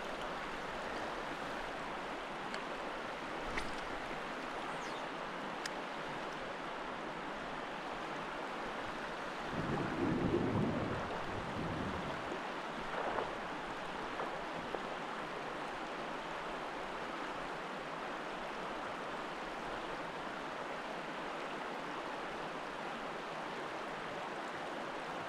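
Steady rush of river water running over shoals. A brief louder, lower sound rises about ten seconds in.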